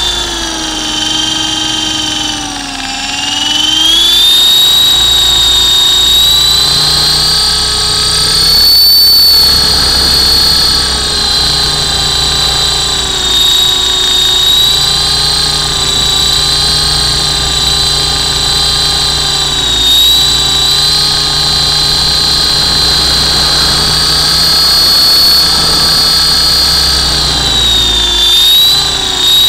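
RC model Hughes 300 helicopter in flight, heard from on board: a steady high motor whine over the rotor noise, dipping in pitch about two seconds in and climbing back a second or two later.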